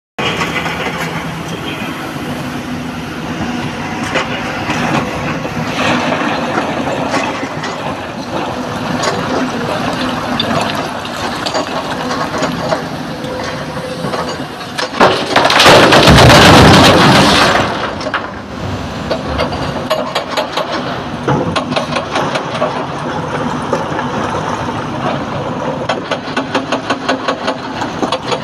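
Excavator diesel engine running under load while it loads broken quarry rock. About halfway through there is a loud crash lasting two or three seconds as a bucketload of rock is dumped into a truck's steel tipper body.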